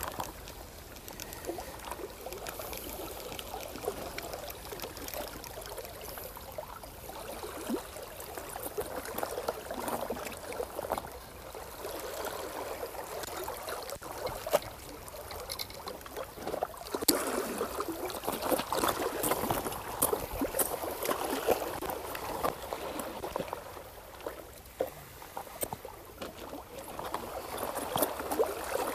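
Seawater lapping and sloshing against shoreline rocks, with scattered clicks and knocks of fishing tackle being handled; louder for a few seconds a little past the middle.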